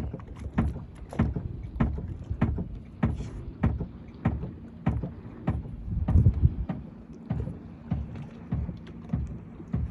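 Water slapping against a boat's hull in short, regular knocks, about one and a half a second, over a faint steady low hum.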